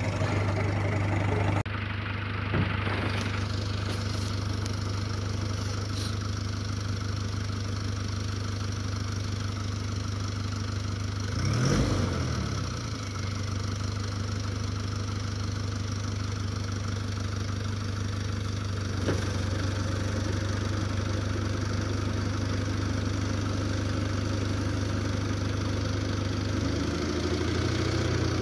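BAW Fenix dump truck's diesel engine idling steadily. Near the end the engine note rises and wavers as the hydraulic tipper raises the dump body.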